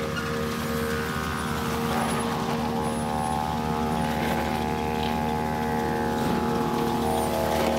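Didgeridoo playing a steady low drone, with slowly shifting overtone sweeps above it.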